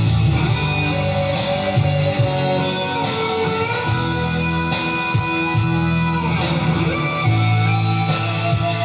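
Band music: an instrumental passage with guitar playing over sustained low bass notes.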